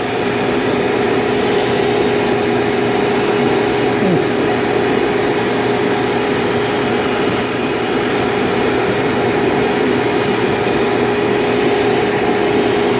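Vacuum cleaner running steadily, its brush attachment working among refrigerator condenser coils: an even, unbroken hum over rushing air.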